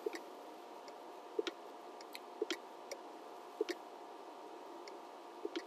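Computer mouse button clicks, a handful of single and double clicks spaced about a second apart, over a faint steady hum.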